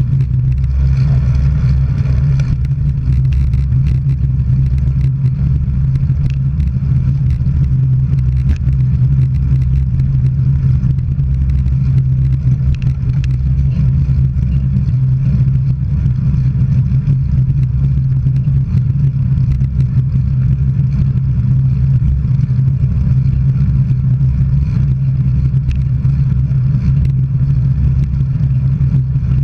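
Steady low road and wind rumble of travel along a road, with a brief higher hiss about a second in.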